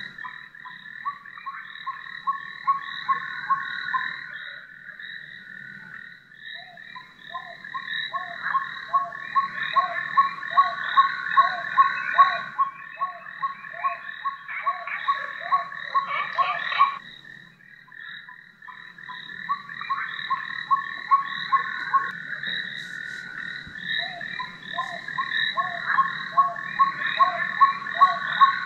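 Built-in frog-chorus nature sound of an aurora ceiling projector, played through its small speaker: rhythmic croaks, about two or three a second, over a steady high-pitched chirring. The croaking dips briefly about two-thirds of the way through, then builds again.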